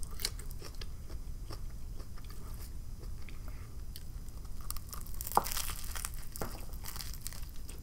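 Close-up eating sounds: a bite into a black bean patty sub sandwich, then chewing with crisp crackles, busiest about five seconds in.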